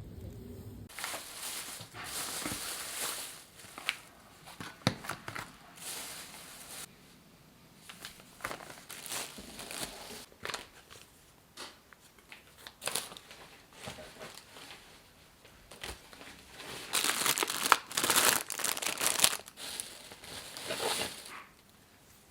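Packaging being handled: irregular crinkling and rustling in short bursts, with the loudest stretch about three-quarters of the way through.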